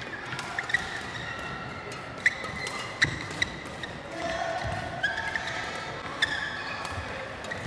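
Badminton rackets striking shuttlecocks in quick, irregular net exchanges, with sharp hits and short squeaks of court shoes on the hall floor.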